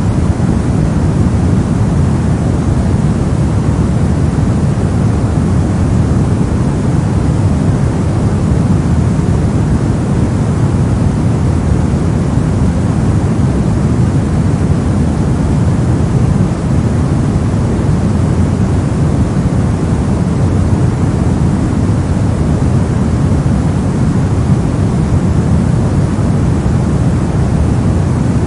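Steady, soft low-pitched noise: brown-noise-like rumble with the treble rolled off, unchanging throughout.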